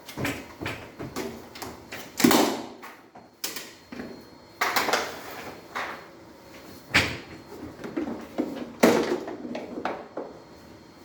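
Vacuum cleaner hose and parts being handled and brushed: irregular plastic knocks and clicks with scraping in between, the loudest knocks about two, five, seven and nine seconds in.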